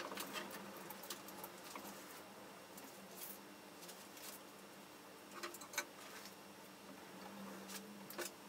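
Faint crackling and scattered small clicks of double-sided tape being unrolled and pressed along the top strip of a paper pleated blind.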